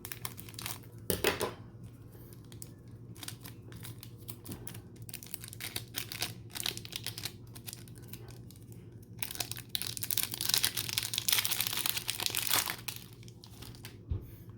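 Packaging of a retail box of trading cards crinkling and tearing as it is opened, in scattered short rustles, with a longer stretch of tearing and rustling about ten seconds in.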